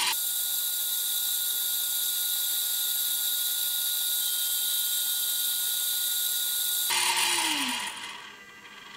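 A small electric motor and gear train running with a steady high whirr. About seven seconds in it winds down with a falling tone and stops.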